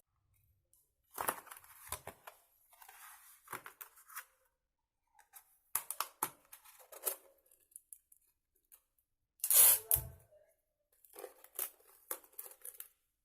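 Crafting material being torn and cut: a series of short rasping tears and snips in irregular groups, the loudest about ten seconds in.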